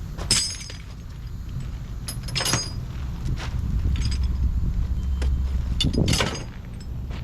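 Metal loading gear clanking and jangling as it is handled and stowed, with three sharp ringing clanks (about a third of a second in, around two and a half seconds, and around six seconds) and lighter clinks between, over a low steady engine rumble.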